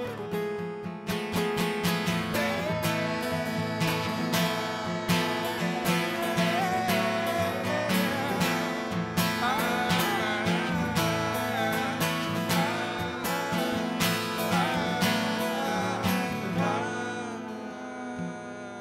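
Two acoustic guitars strumming chords while a man sings a wordless melody over them. The song winds down and fades out near the end.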